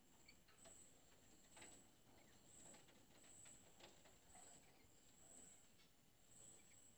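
Near silence, with a faint high-pitched chirp repeating about once a second and a few faint scattered ticks.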